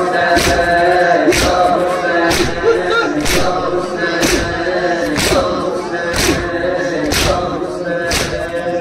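Men's voices chanting a nauha (Shia lament) together without instruments, kept in time by chest-beating slaps (matam) about once a second.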